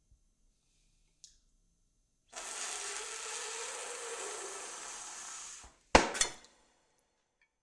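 A long steady hiss lasting about three seconds, then two sharp clinks of a spoon against a porcelain soup bowl as a head is shoved down over the bowl, the second a moment after the first.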